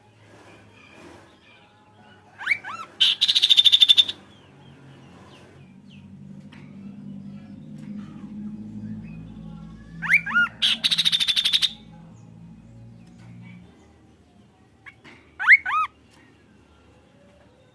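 Kaso-kaso bird singing in three bursts: quick slurred whistles, the first two followed by a fast, even, buzzy trill about a second long; the last is whistles only. A low steady hum lies underneath for several seconds in the middle.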